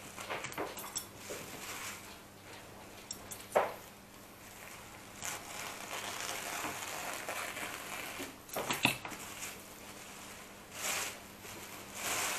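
Scissors snipping and sliding through thin black plastic bin bags, with the rustle and crinkle of the plastic sheets, and a few sharp clicks along the way. Near the end the opened bags are lifted and spread, crinkling louder.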